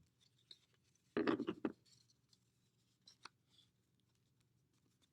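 Construction paper and cardboard being handled and pressed down as a folded paper piece is glued on: a quick cluster of rustling taps about a second in, then a few faint clicks and rubs.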